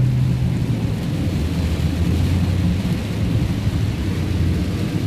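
Car driving through deep standing floodwater in heavy rain: a steady low drone of engine and tyres pushing through water under a hiss of rain and spray. The drone drops a little in pitch about a second in.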